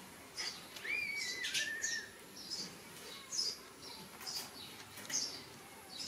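Small birds chirping, short high chirps repeating about every two-thirds of a second, with one longer whistled note that steps down in pitch about a second in.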